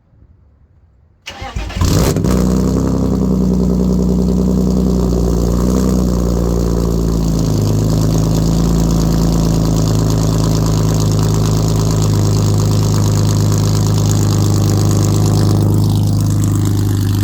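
BMW E36 engine cold-started through an exhaust with a catless midpipe and no muffler: a brief crank about a second in, then it catches and runs way too loud at a fast idle that steps down to a lower steady idle about seven seconds in.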